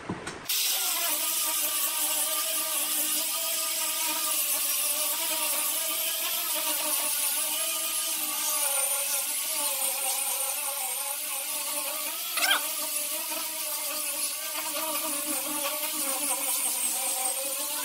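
Angle grinder fitted with a sanding disc running steadily as it sands a pine board panel: a motor whine whose pitch wavers slightly with the pressure, over the hiss of abrasive on wood. A brief rising squeal comes about two-thirds of the way through.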